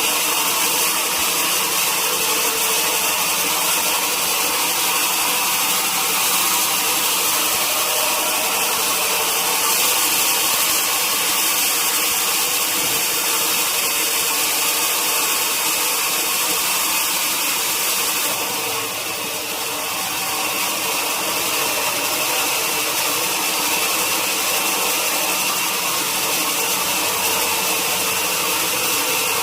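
Sawmill saw and machinery running steadily, a continuous loud mechanical noise that eases slightly for a moment about two-thirds of the way through.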